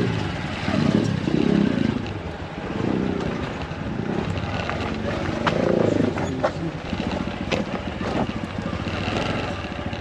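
Motorcycle engine running steadily at idle, with indistinct voices and a few sharp clicks around the middle.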